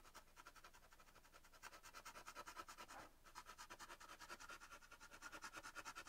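Charcoal pencil scratching faintly over the drawing surface in quick, even back-and-forth hatching strokes, several a second, steadier from about a second and a half in.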